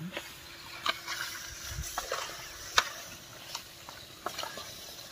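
A metal spoon knocking and scraping against a steel cooking pot as marinated chicken pieces are stirred, a few sharp clinks roughly a second apart over a faint hiss.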